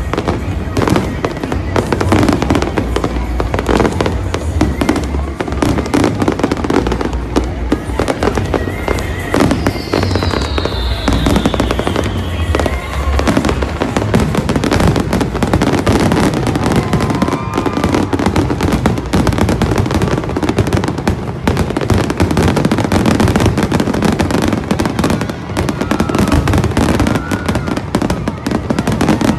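Fireworks display: a dense run of bangs and crackling, with a falling whistle about ten seconds in. Music plays underneath.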